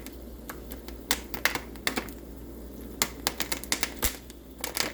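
Popcorn kernels popping in a Jiffy Pop foil pan heating on the stove: sharp, irregular pops a few a second, coming faster in the second half as the popping gets going.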